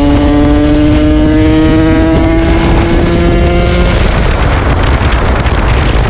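KTM 125 SX single-cylinder two-stroke engine running under throttle, its note rising slowly in pitch for about four seconds. It then drops into a rougher, unpitched rushing sound.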